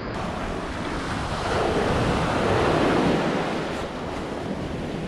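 Ocean surf washing up the beach, swelling to its loudest about two to three seconds in, with wind rumbling on the microphone.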